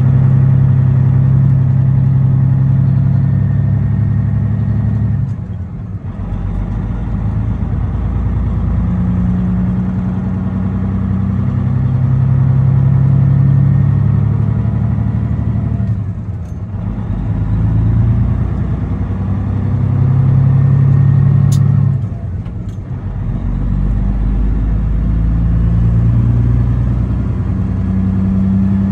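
Semi truck's diesel engine heard from inside the cab while driving, a steady low drone whose pitch steps up and down, with three brief dips where the engine note drops away and comes back.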